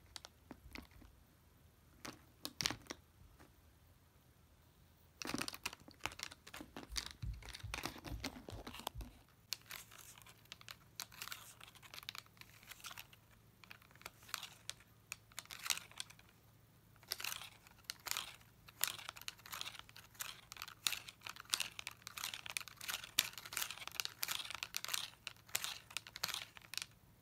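A Norwegian Forest Cat biting and clawing at a plastic pinwheel toy: quick crinkling and crunching of the plastic blades, scattered at first and almost continuous from about five seconds in.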